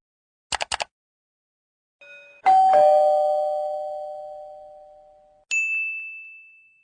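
A few quick clicks, then a two-note falling chime, ding then dong, ringing out and fading over about three seconds; near the end a single higher ding rings and fades.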